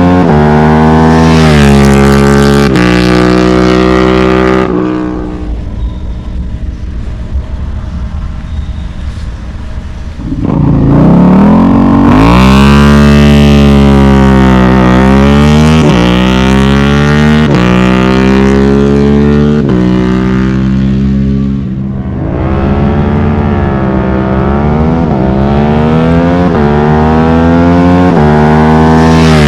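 Suzuki SV650 V-twin accelerating hard through the gears, its pitch climbing and then dropping sharply at each quick-shifter upshift. It goes quieter for a few seconds in the middle, then revs up fast and runs on with several more rising and falling pulls and shifts.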